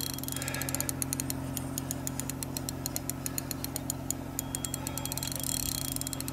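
Spinning reel clicking rapidly, about eight to ten clicks a second, with a big lake trout on the bent rod; the clicking thins out after about four seconds. A steady low hum runs underneath.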